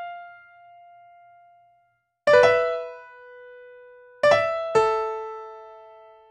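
Slow piano music: single struck chords left to ring out and fade, one about two seconds in and two more close together near the end.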